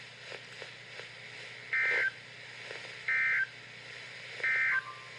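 NOAA Weather Radio EAS/SAME digital data bursts: three short, identical electronic buzzes about 1.3 seconds apart over faint radio hiss, the short end-of-message code that closes an alert. A brief lower tone follows the last burst.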